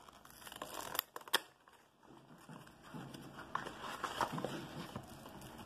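Cardboard structure-deck box being opened by hand: two sharp snaps about a second in, then rustling and scraping of cardboard and paper as the box is worked open.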